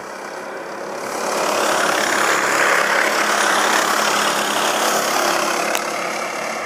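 A pack of racing karts approaching and passing at speed, their engines growing louder over the first second and a half, staying loud, then easing a little near the end.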